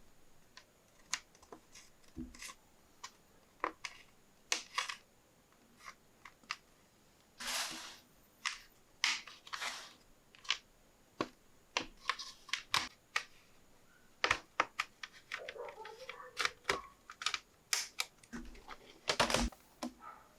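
Irregular clicks, taps and short scrapes of hands working on an Asus TUF Gaming FX505 laptop's plastic case and parts while RAM is being added.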